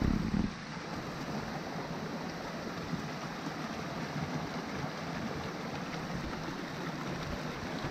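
Mountain stream flowing over boulders: a steady rushing wash of water, with a short louder low rumble right at the start.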